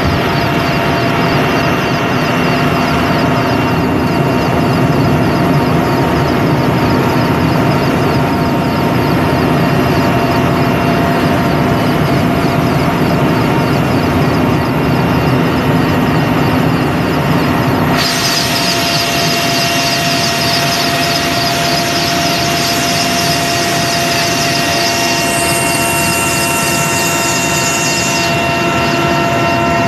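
Helicopter turbine engine and rotor running steadily while hovering, heard loud from the open cabin door: a dense rotor noise with a steady whine through it. About halfway through, the sound turns brighter and hissier.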